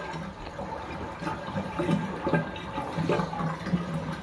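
Bathtub draining: dirty bathwater running out and gurgling down the drain.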